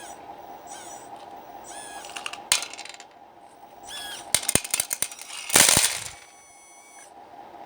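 RC hydraulic excavator at work: a steady pump hum under short rising and falling whines from the moving model, metallic clinks and clicks, and a loud brief rattling rush about five and a half seconds in. The hum cuts off at the end.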